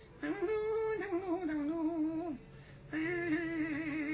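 A man's voice singing a wordless tune in long, wavering held notes, in two phrases with a short break between them about two and a half seconds in.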